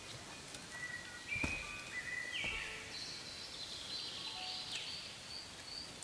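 Outdoor ambience with a bird calling in short high chirps, about two a second, over soft held background music notes. There is a single knock about one and a half seconds in.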